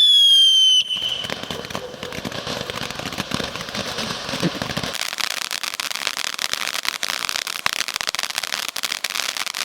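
Firework fountain going off: a loud whistle, falling slightly in pitch, for about the first second. Then a steady spray of fine crackling sparks, fairly quiet.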